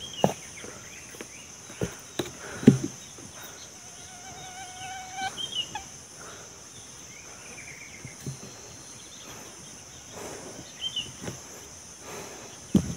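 Steady high-pitched insect drone outdoors, with a few sharp knocks, the loudest about three seconds in, and a held whistled note lasting about a second and a half a little after four seconds in.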